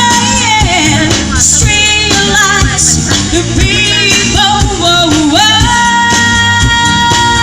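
Loud music with a singer: a sung melody over a steady beat, ending on a long held note.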